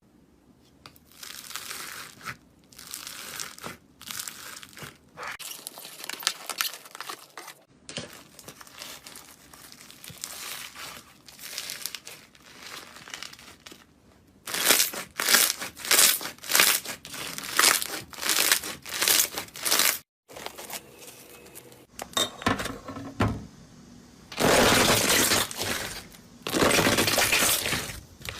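Hands squeezing and pressing slime: a run of short, noisy bursts, sparse at first, then denser and louder from about halfway on.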